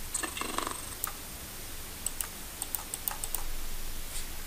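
A short buzzy burst with a thin high whine lasting under a second near the start, then a quick series of sharp clicks from a computer mouse and keyboard.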